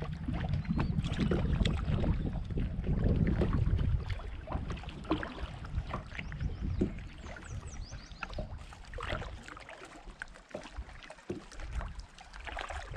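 Wind buffeting the microphone as a low rumble for the first four seconds, then water lapping and slapping against a kayak's hull with scattered small knocks.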